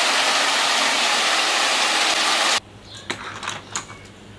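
Steady mechanical rattling noise that cuts off suddenly about two and a half seconds in, followed by a few light clicks and taps.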